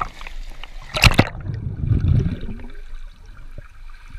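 A dog splashing into a swimming pool: one loud splash about a second in, then muffled churning and bubbling heard from under the water, fading to faint underwater ticks.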